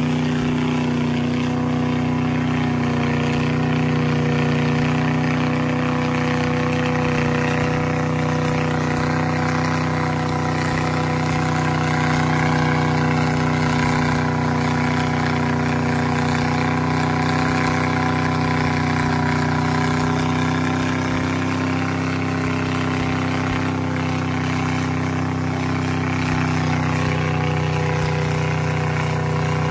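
Mega mud truck's engine held at steady revs while its giant tires spin in deep mud: the truck is stuck in the pit, digging in without moving forward.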